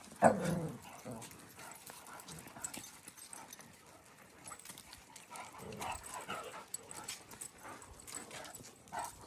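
A dog barks once, loudly, just after the start, then fainter scattered dog sounds from the pack.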